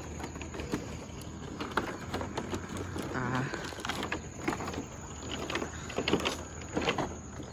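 Rickety bamboo footbridge clacking and creaking under footsteps: irregular knocks of loose bamboo poles shifting against each other, with a short creak about three seconds in.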